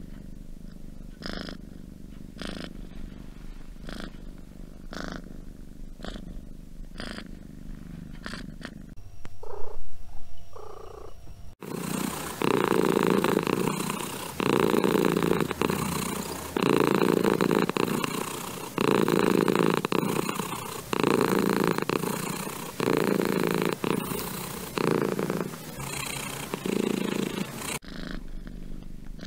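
Domestic cats purring, in separate clips. A soft purr gives way to a much louder, close purr that rises and falls with each breath, roughly every two seconds, and near the end a soft purr returns. About nine seconds in there is a brief, louder sound.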